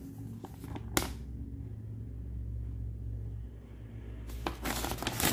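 Paper manual sheet rustling as it is handled near the end, after a single sharp click about a second in, over a steady low hum.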